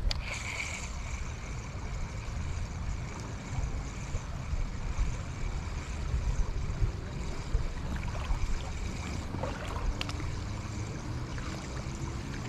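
Creek water running steadily over a shallow riffle: a continuous low rumble and rush, with a few light clicks.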